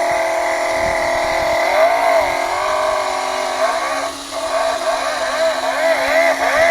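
Toy plastic V8 model engine's battery-powered base playing a recorded engine sound through a small speaker: a steady idle with the revs rising and falling several times.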